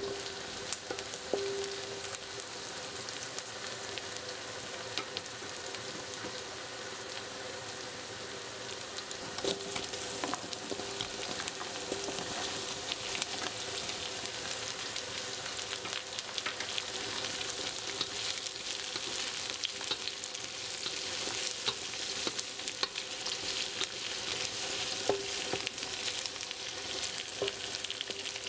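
Chopped red onion and chilies sizzling in hot oil in a stainless steel wok, with a spatula scraping and clicking against the pan as it stirs. The sizzle grows louder about ten seconds in, as the white stems of napa cabbage go into the wok.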